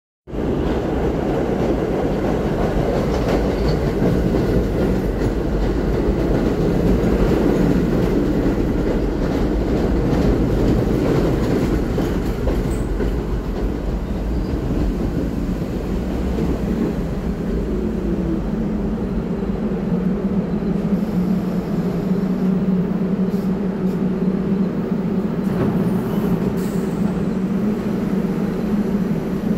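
R44 subway train pulling into the station, its wheels rumbling on the rails. About two-thirds of the way in a falling whine marks it braking to a stop, after which the standing cars give a steady hum, with a few sharp clicks as the doors open.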